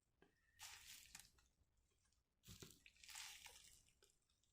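Near silence: room tone with two faint, soft noises, one about half a second in and one about two and a half seconds in.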